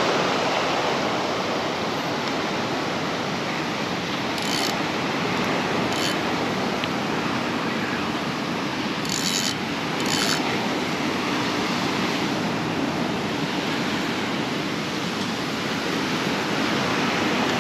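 Ocean surf washing steadily on the beach, with a few short high rattles on top of it.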